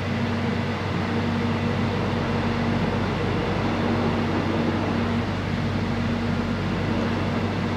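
Steady hum and rumble of a moving electric train, heard from inside the carriage.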